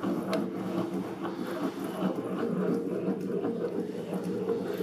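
Motor of a vertical powder packing machine running with a steady hum, with a sharp click shortly after the start.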